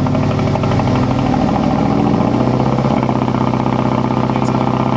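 2006 Mazdaspeed 6's turbocharged 2.3-litre four-cylinder idling roughly just after a cold start, its note shifting about three seconds in. The misfire is still present, which the owners suspect comes from a bad coil pack.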